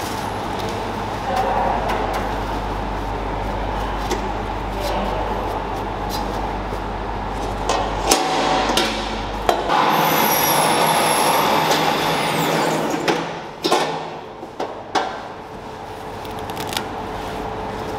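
Food factory machinery running steadily. A low hum drops out about eight seconds in, and there are several sharp metallic knocks in the second half.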